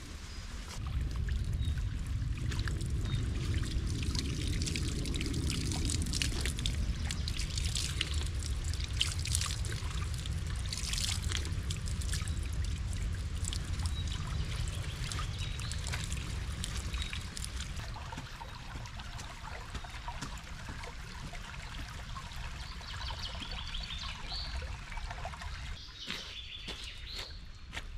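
Spring water pouring steadily from a metal pipe spout onto wet ground until a little past halfway. Birds chirp faintly near the end.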